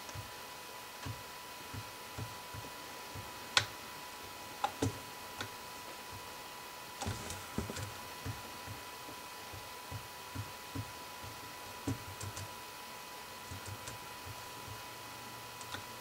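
Irregular light clicks and taps of a computer keyboard and mouse, a few sharper clicks among them, over a faint steady high tone.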